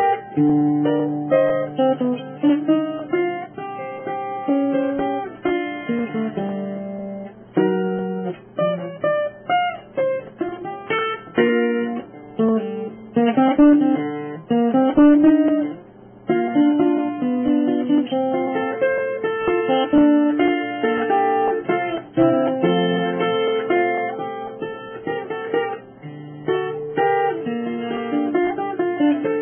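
Instrumental background music of plucked guitar notes, a running melody over lower notes.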